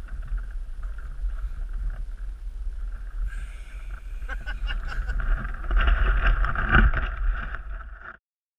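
Wind buffeting a handheld camera's microphone, a steady low rumble, with handling clicks and rustles from fingers near the camera in the middle; the sound cuts off suddenly near the end.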